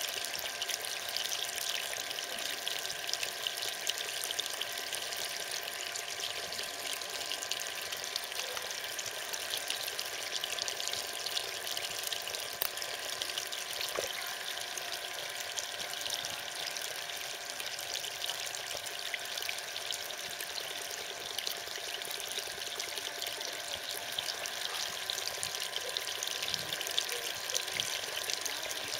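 Water running steadily into a small pond: an even pouring and trickling hiss that does not change.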